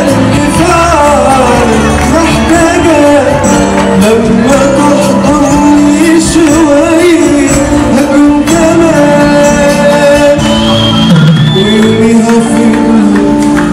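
Male singer singing an Arabic pop song live into a microphone over a backing band, his voice sliding and ornamenting the notes.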